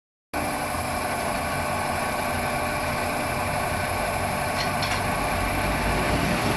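Bench drill press running steadily, spinning a wire wheel brush while a motorcycle engine valve is held against it to scrub off carbon deposits. A motor hum sits under the wire-brushing noise.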